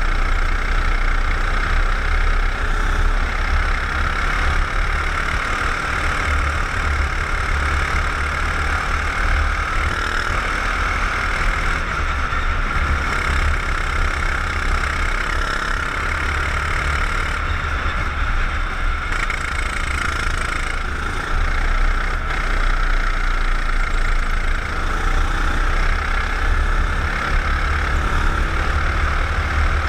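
Racing kart's engine running at speed, heard from an onboard camera on the kart: a steady, continuous engine drone with little change in pitch, dipping briefly a little past twenty seconds in.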